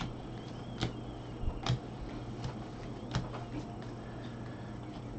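Bowman baseball cards being flipped through in gloved hands: a sharp tick roughly once a second as each card is slid off the stack, the loudest near the start, over a steady low hum.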